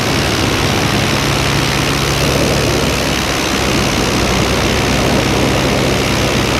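Paramotor engine and propeller running steadily in flight: a constant drone under a broad hiss of wind.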